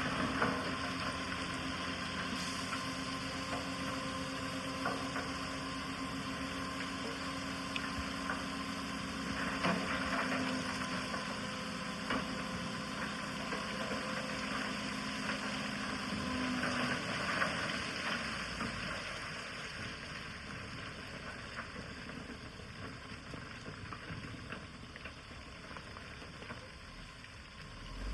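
Heavy-machinery diesel engine running steadily, fading somewhat over the last third.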